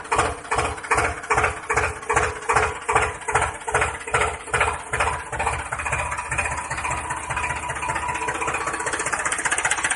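Tractor engine sound effect chugging in even beats, about three a second, that quicken and run together into a steadier rumble from about halfway through.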